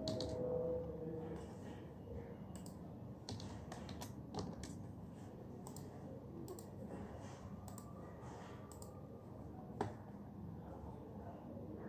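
Typing on an office computer keyboard: irregular key clicks with short pauses between runs, and one sharper click about ten seconds in.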